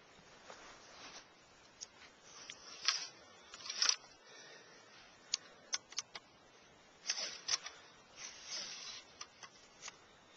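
Scattered light clicks and short rustles of handling, coming at irregular intervals.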